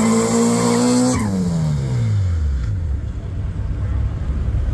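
Car engine held at high revs for about a second, then the revs fall away steadily over a second and a half into a low rumble.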